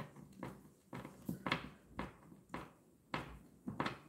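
Screw being driven by hand with a screwdriver into pine wood: faint short creaks and clicks with each twist, irregular, a few a second.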